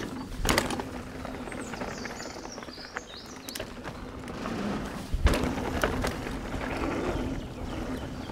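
Specialized Enduro mountain bike rolling down a dirt trail, with tyre noise and rattling. There is a sharp knock about half a second in, and a heavy thump about five seconds in as the bike lands a small drop.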